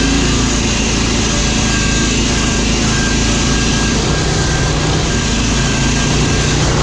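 Riding lawn mower's engine running steadily at full speed while the mower is under way.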